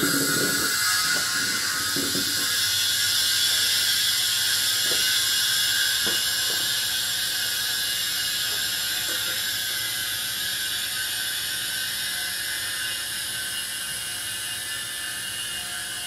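Homemade refrigerant recovery machine, a compressor salvaged from a window air conditioner, switching on and running with a steady hiss and hum as it pulls refrigerant out of a car's AC system into a recovery tank. It slowly grows quieter as the system pressure drops.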